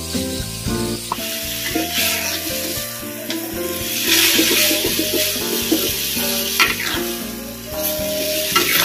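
Oncom stir-fry with basil leaves sizzling in a metal wok while a metal spatula turns it, scraping and knocking against the pan a few times. Soft background music plays underneath.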